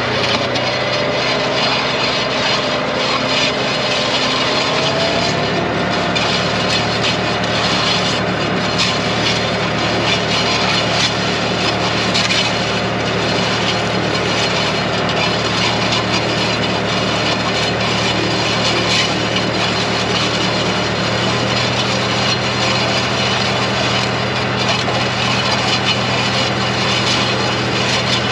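Tractor engine running steadily while pulling a toolbar of John Deere 71 planter units through dry clay soil. Its pitch climbs over the first five seconds as it picks up speed, then holds. The planter units rattle and clatter over the clods throughout.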